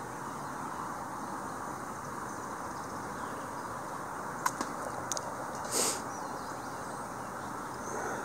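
Steady low outdoor hiss of open-air river ambience, with a few sharp clicks a little past the middle and a short burst of hiss near six seconds in.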